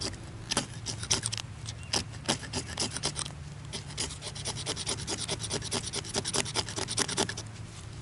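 Knife blade of a Victorinox Hiker Swiss Army knife scraping a Coghlan's magnesium fire-starter bar, shaving magnesium onto tinder in quick short strokes, about four a second. The scraping stops shortly before the end.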